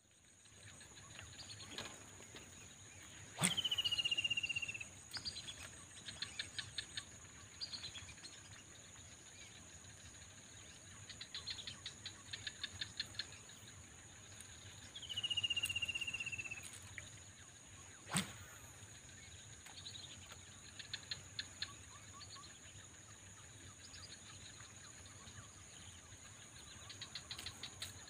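Steady high-pitched insect drone in the open with two falling whistles, each about a second and a half long, and several short bursts of rapid ticking.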